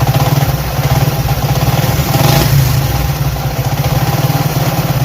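Honda CD 70's small single-cylinder four-stroke engine idling with a 'dak dak' knock from inside the engine, swelling briefly about two seconds in. The knock comes from the clutch box, which the mechanic traces to a loose clutch hub nut.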